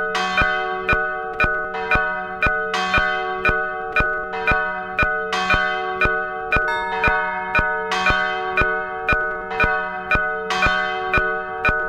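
Church bells pealing: several bells struck one after another in a steady, unbroken sequence, about two strokes a second, each ring overlapping the next.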